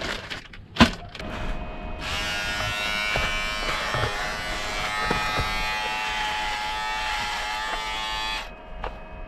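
An electric shaver buzzing steadily for about six seconds, switching on about two seconds in and dropping away near the end. Before it starts, a few clicks and rustling as it is taken out and handled.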